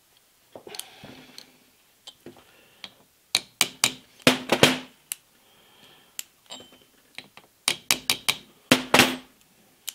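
Small brass-and-nylon-faced hammer tapping a tight-fitting latch pin through the holes of a steel lathe collet closer body: two runs of sharp metallic taps, some with a short ring, after a brief rustle of handling about half a second in.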